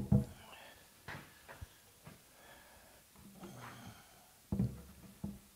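Dull knocks and thumps of a heavy wooden board being lifted, shifted and set against a workbench. A strained breath from the lifter comes about midway.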